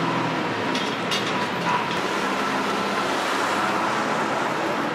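Busy city street traffic: engines of passing buses and cars running steadily, with a few light clicks about a second in.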